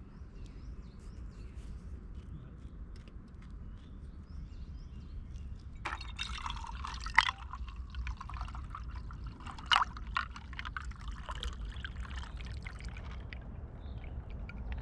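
An iced drink poured from a plastic jug into an enamel metal mug, the splashing trickle starting about six seconds in and going on for several seconds, with two sharp clinks during the pour.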